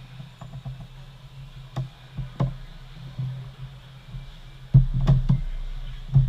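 Scattered knocks and taps, a few single ones and then a quick cluster near the end, over a steady low hum.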